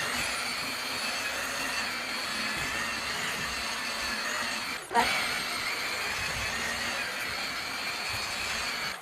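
Electric buffer machine running at steady speed with a high whine, its pad polishing a plastic headlight lens with machine polish. About five seconds in, the sound briefly dips and gives a sharp knock, then carries on.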